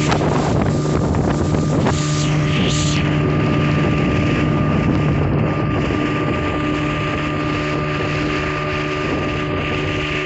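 Motorboat engine running steadily at speed, a constant drone, over the rush of spray along the hull and wind on the microphone. The hiss of spray and wind eases about three seconds in.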